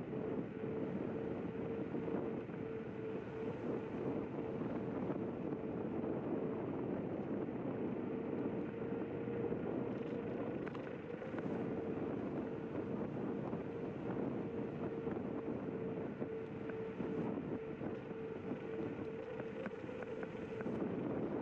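Zero 10X electric scooter riding along an asphalt path: steady rumble of the tyres and wind on the microphone, with a steady hum from the hub motor.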